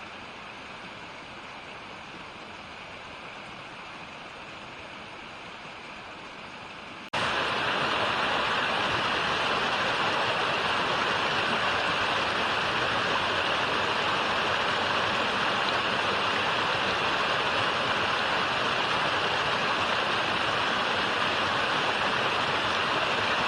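Steady rushing water of a creek and waterfall. It jumps abruptly to a much louder, closer rush about seven seconds in, then holds steady.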